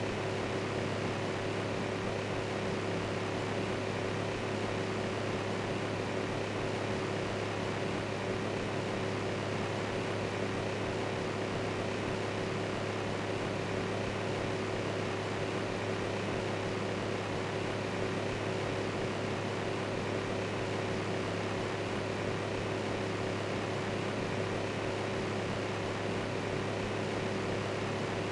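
Electric fan running steadily: an even rushing noise with a low hum and a faint higher-pitched tone.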